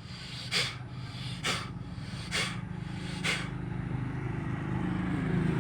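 Forceful exhalations blown out through the nose with the mouth closed, clearing rinse water from the nasal passages after jal neti: four sharp nasal blasts a little under a second apart. Under them is a low hum that grows louder toward the end.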